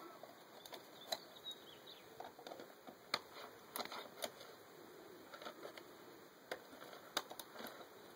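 Scattered light clicks and taps of a T27 Torx bit driver being turned on the top-cover screws of a Stihl concrete cut-off saw, metal tool on screw and plastic housing.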